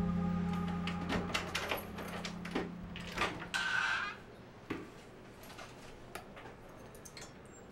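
A door being handled and opened: a run of clicks and knocks with a short scrape about three and a half seconds in. A held low music chord fades out under it by about four seconds.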